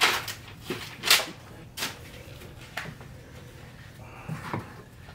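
Short scrapes and taps, about seven in all, of a small putty knife scooping grout off a grout float and pressing it into the backsplash tile joints. The loudest scrape comes about a second in.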